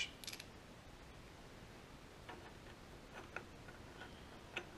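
Faint, scattered small metal clicks and ticks from a steel bolt being handled and tried in the mounting holes of a cast-iron flange bearing.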